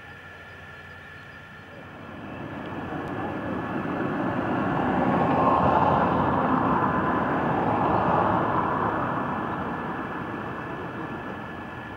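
A passing vehicle: a rushing noise that swells from about two seconds in, is loudest in the middle, and fades toward the end.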